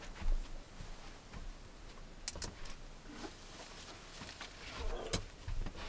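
Scattered handling noises: rustling, low knocks and sharp clicks as a person moves about, lifts a small dog and sits down in a folding camp chair. The loudest is a thump about a third of a second in, with a sharp click a little after five seconds.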